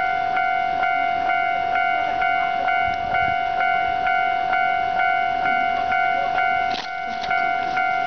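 Japanese level-crossing warning bell ringing continuously, about two strokes a second, while the crossing is in fault, perhaps falsely activated. A short knock about seven seconds in.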